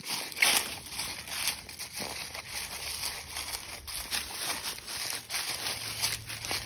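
Footsteps crunching and rustling through a thick layer of dry fallen leaves, about two steps a second.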